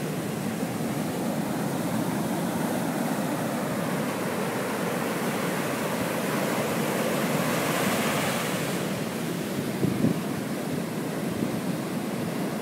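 Ocean surf breaking and washing up a sandy beach, a steady rush that swells about eight seconds in as a wave runs in. A couple of brief low bumps on the microphone about ten seconds in.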